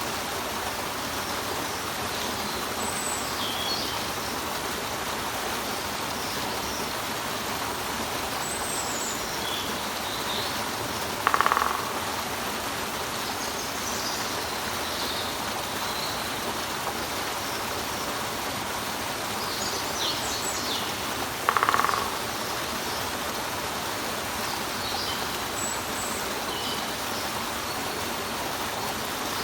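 Water pouring over a rock with a steady rush, small birds chirping high and briefly now and then. Twice, about ten seconds apart, a woodpecker gives a short, rapid burst, the loudest sound in the stretch.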